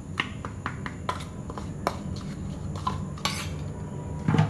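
A spoon clinking and scraping against a small bowl while stirring rice flour into a wet paste: irregular light taps, with a longer scrape near the end.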